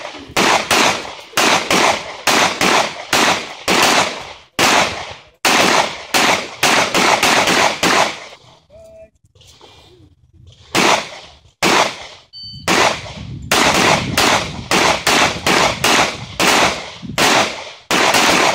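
Glock 21 .45 ACP pistol fired in rapid strings, shots coming about two a second. Shooting stops for about two seconds past the middle, then a short electronic shot-timer beep and another fast string of shots.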